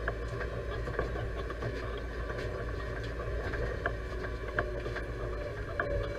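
Deutz-Fahr 5100G tractor's diesel engine running steadily, heard from inside the cab, with a few sharp clicks and rattles scattered through it.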